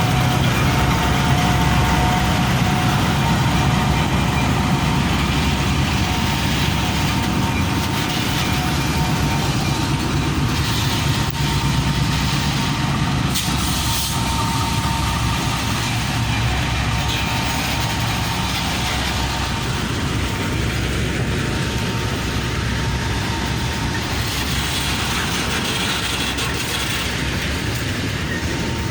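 Loaded freight train rolling slowly into the station as it comes to a stop: a steady low rumble of the wagons, with a faint thin squeal near the start.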